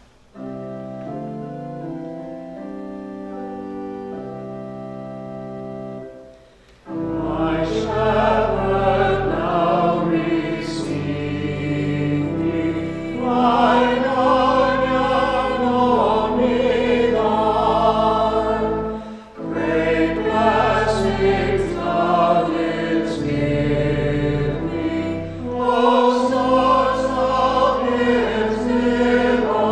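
Pipe organ playing a short introduction of held chords. A small choir then joins about seven seconds in, singing with the organ over a deep pedal bass line.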